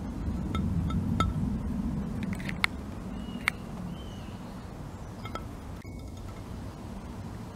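Scattered light clinks of hard objects knocking together, the two loudest near the middle, over a low steady rumble.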